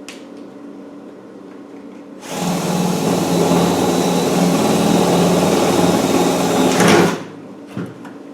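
Electric drill running for about five seconds as it bores a rivet hole through the seat box panel, then stopping suddenly. A short knock follows.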